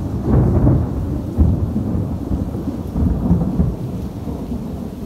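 Thunder rumbling continuously in low, swelling rolls that ease off a little near the end.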